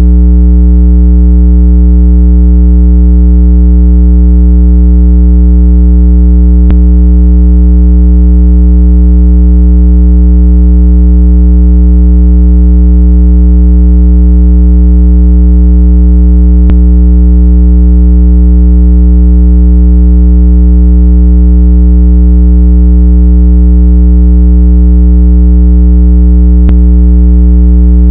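A loud, steady, low electronic tone with a stack of overtones, played as a speaker water-ejection sound meant to shake water out of a phone speaker's grille. A faint click comes three times, about ten seconds apart.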